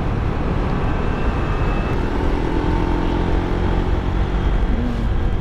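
Motorcycle riding at cruising speed: a steady rush of wind noise on a helmet-mounted microphone with the engine running underneath.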